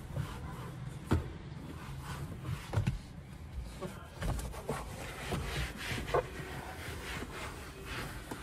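Microfiber towel wiping and rubbing over a car's dashboard and seat, with a few light knocks, over a low steady hum.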